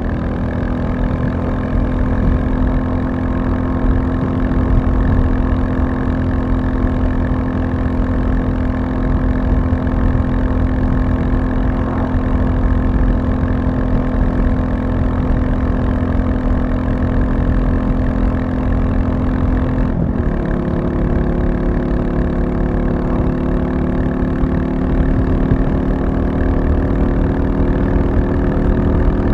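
Royal Enfield Classic 350's single-cylinder engine running steadily under way. About twenty seconds in the note breaks off briefly, then climbs slowly as the bike pulls.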